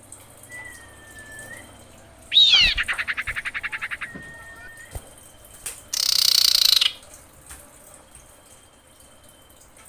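Female common iora calling: a thin level whistle, then a loud downward-sweeping note that breaks into a fast trill, followed by another level whistle. About six seconds in comes a loud, harsh, noisy burst.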